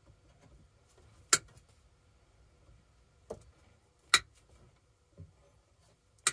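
A few sharp, separate knocks and clinks of tools and hardware as the old self-contained marine air conditioner is worked loose. The loudest come a little over a second in and about four seconds in.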